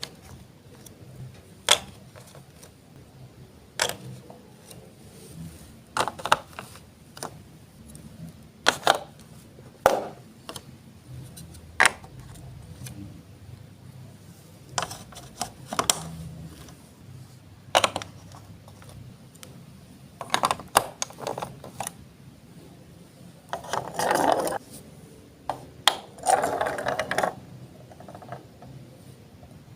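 Lego Duplo plastic bricks being set down and pressed together: single sharp clicks and knocks a second or two apart, with two longer clattering rattles near the end.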